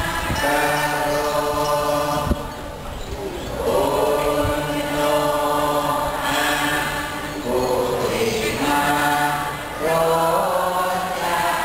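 Several voices chanting together in long held phrases over a low steady drone, pausing briefly every few seconds.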